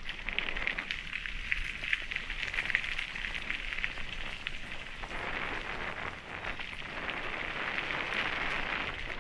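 Mountain bike tyres rolling fast over a loose gravel trail: a steady crunching crackle of stones with many small clicks, turning to a fuller, smoother hiss about halfway through.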